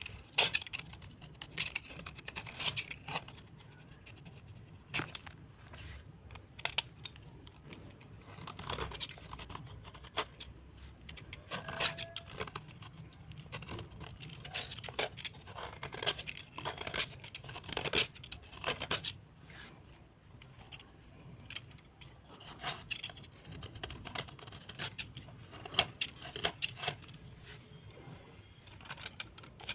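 Close, irregular scraping with crisp crunchy clicks and snaps, a few strokes every second with pauses between: soaked slate or clay being scraped and cleaned by hand.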